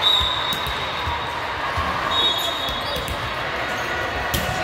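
Echoing gymnasium noise from volleyball play: balls thudding on the hardwood floor, two short high squeaks, and a sharp smack near the end, over a steady wash of voices in the hall.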